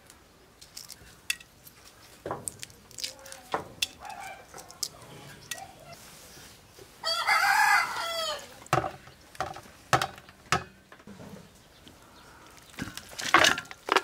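A rooster crows once, loudly, about halfway through, over scattered sharp knocks and clicks.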